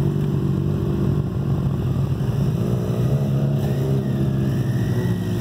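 BMW touring motorcycle with a sidecar rolling slowly past, its engine running with a steady low hum, along with the engine of a Chevrolet SSR pickup driving up. A thin whine drifts up and down for the last second or so.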